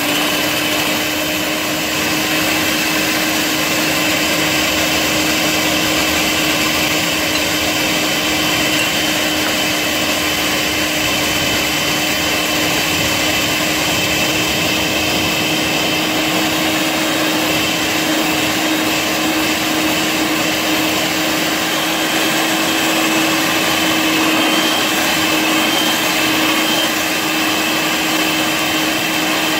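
Electric whisk motor running steadily at one speed, its whisk beating eggs and sugar in a ceramic bowl. The mix is being whipped until it turns pale and creamy for a sponge cake.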